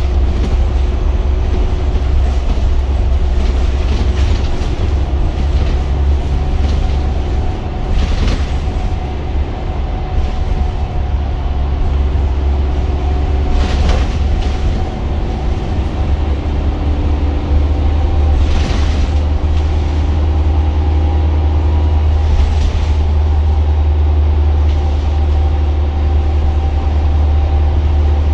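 Inside a Wrightbus GB Hawk single-deck bus under way: a steady low engine drone with whining driveline tones that shift slightly in pitch, and a few short rattles and knocks from the body.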